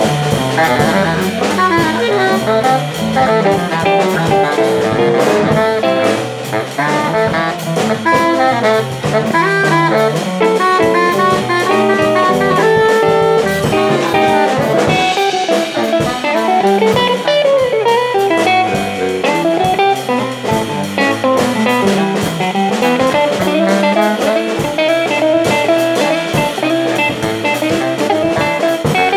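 Jazz trio of baritone saxophone, archtop guitar and drum kit playing a tune, the baritone sax carrying a fast-moving melodic line over the guitar and cymbal-led drums.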